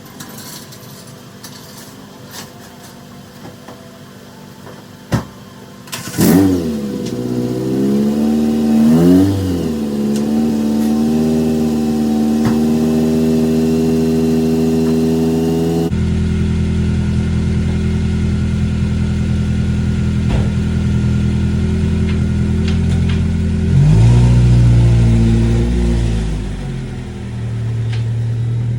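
2004 Honda Civic Si's four-cylinder engine starting about six seconds in, blipping once and settling into a steady idle. Near the end it revs up briefly and drops back to idle.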